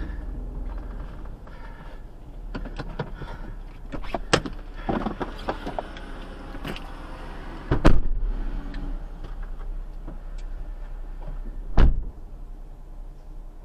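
Clicks and knocks of someone moving inside a stopped vehicle's cabin as the driver gets out, over a steady low hum. Two loud thumps stand out, about eight and twelve seconds in, typical of the car door opening and shutting.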